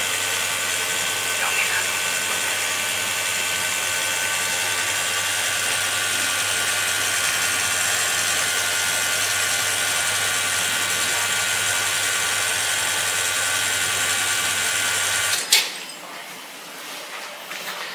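Dalla Corte espresso machine's pump running steadily during a shot extraction, then shutting off with a sharp click about fifteen seconds in as the shot is stopped.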